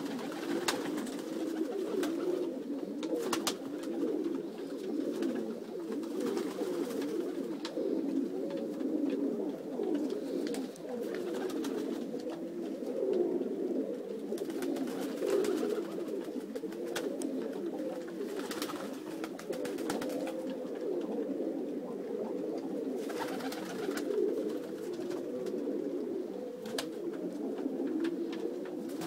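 Many domestic pigeons cooing together in a loft, a steady dense chorus of overlapping low coos, with scattered short clicks and taps.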